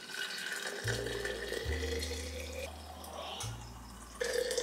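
Vegetable broth pouring from a stainless steel bowl into a glass jar, with background music of low held bass notes underneath.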